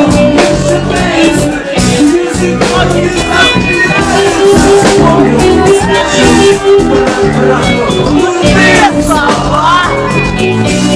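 Loud song playing: a voice singing over a band with a steady drum beat.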